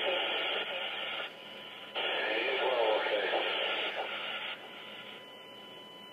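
Emergency-services radio traffic from an online scanner feed: two clipped, narrow-sounding voice transmissions, with quieter stretches of radio hiss between them and after the second one ends, about four and a half seconds in.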